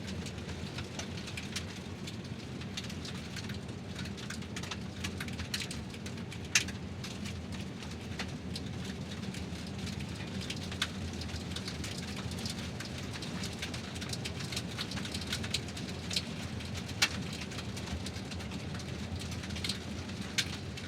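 Tyres of a car rolling slowly over fine gravel: a steady low rumble with irregular, scattered clicks of small stones crunching and popping under the wheels.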